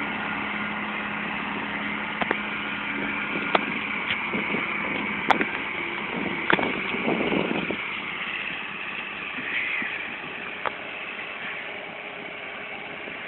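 Case 170 tractor's diesel engine running under load as it pulls a tillage implement across a field, slowly fading as it moves away. A few sharp clicks stand out over it.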